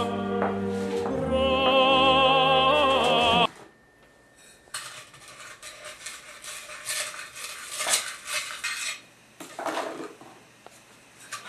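Operatic-style music with a wavering singing voice that cuts off suddenly about a third of the way in. Then a spoon clinks and scrapes against a bowl in irregular strokes as someone eats soup.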